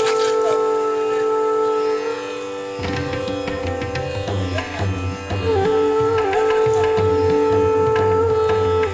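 Instrumental background music in an Indian classical style: held melody notes that bend in pitch over a steady drone, with a low drum beat coming in about three seconds in.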